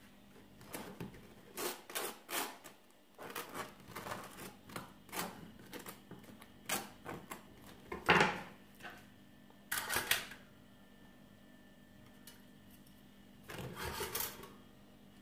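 A knife scraping butter across crisp toast in short strokes, about two a second, followed by a few knocks and clicks as the slice is set on a toaster's bun-warming rack and a control button is pressed.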